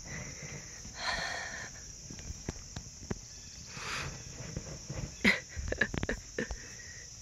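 A horse noses and pushes a large covered play ball on dirt, making scattered scuffs and soft knocks from hooves and ball. A sharper knock comes a little after five seconds, followed by a quick run of clicks. Insects drone steadily behind.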